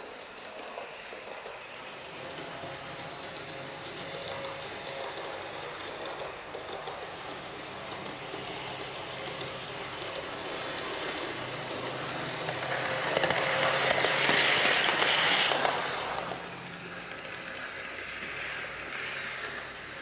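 Heljan OO gauge Class 128 parcels DMU model running round the track pulling a load: a steady whirr of motor and wheels on the rails that swells to its loudest between about thirteen and sixteen seconds in, then drops back.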